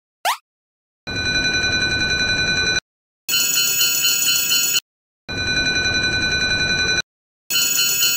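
Japanese railroad crossing warning bells ringing in quick repeated strikes. They sound in bursts of under two seconds separated by half-second gaps, and the bursts alternate between two bells of different pitch. A short rising sweep comes just before the first burst.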